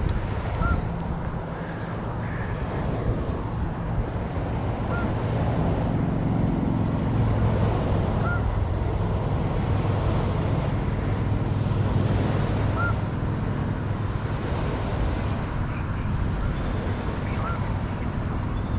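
Wind on the microphone and river water, under a low steady engine drone that grows stronger through the middle. A short high chirp repeats every few seconds.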